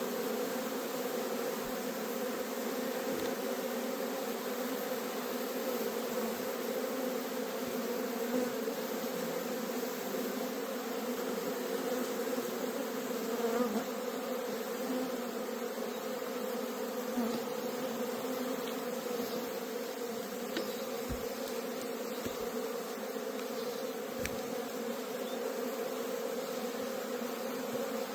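Honey bees buzzing in a steady, unbroken hum, many at once.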